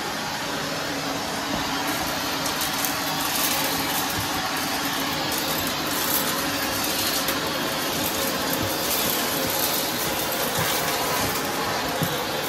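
Vacuum cleaner running steadily as its wand sucks up scattered confetti and glitter from a hardwood floor, with occasional small ticks of debris going up the tube.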